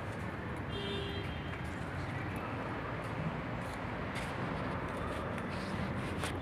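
Steady low background rumble of mechanical or traffic noise, with a few faint clicks and a brief faint tone about a second in.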